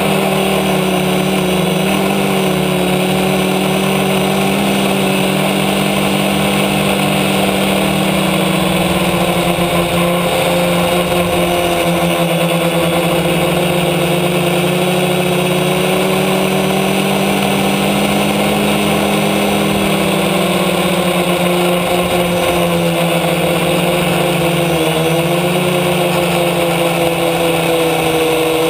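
F450 quadcopter's four motors and propellers running in flight, heard from the camera mounted on the frame: a loud, steady drone made of several tones that drift slightly up and down in pitch as the motors adjust their speed.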